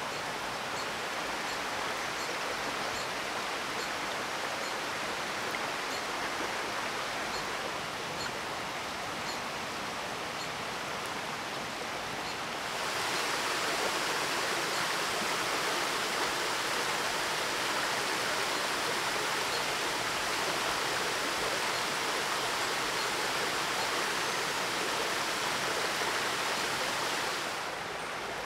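Steady rushing noise of running water. It steps up louder and brighter about halfway through and drops back shortly before the end.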